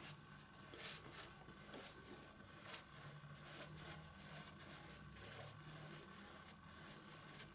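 Faint, irregular swishes of a flat brush spreading a thin coat of varnish across the surface of an oil painting, over a faint low hum.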